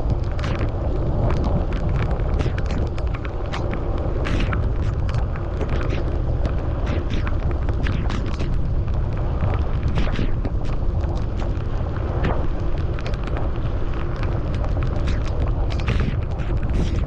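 Wind rumbling on the microphone of a camera riding on a moving bicycle, with frequent sharp ticks and taps over it.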